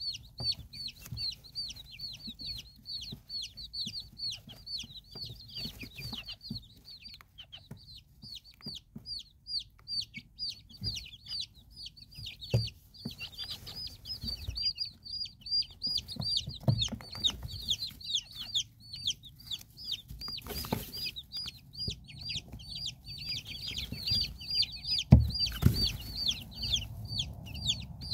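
Chicks peeping without a break: a dense stream of quick, high cheeps, each sliding downward. A few low bumps come through, the loudest near the end.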